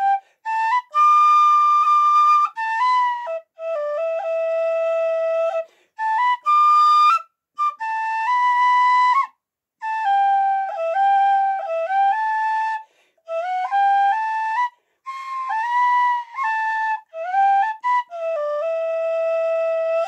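Blacksmith Weston whistle in D, an end-blown fipple whistle, playing a single-line melody in short phrases with brief breath pauses between them and quick ornaments on some notes. It ends on a long held low note.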